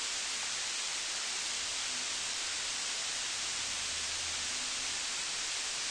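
Steady, even hiss of recording noise with nothing else heard.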